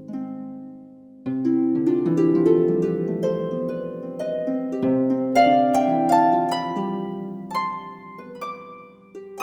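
Instrumental background music: a light melody of quick plucked notes over lower held notes.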